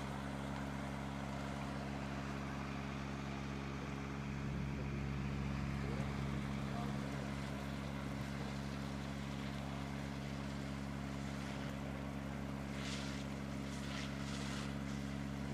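An engine idling steadily, a constant low hum that holds the same pitch throughout, with a few short hisses near the end.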